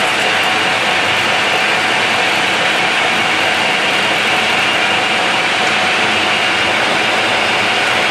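Metal lathe running steadily at about 750 rpm while the tool turns a taper on the workpiece, with a constant whine over the cutting noise. The cutting pressure is reduced and the cut sounds healthy.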